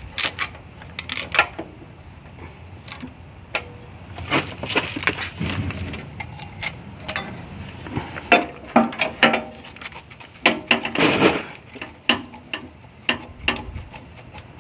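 Scattered clicks, clinks and light knocks of a radiator mounting bracket and small hardware being handled and fitted against an aluminium radiator, with a couple of longer rattling handling noises.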